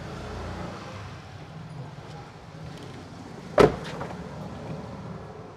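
A car door shutting, a single sharp thud about three and a half seconds in followed by a lighter knock, over a steady low background rumble.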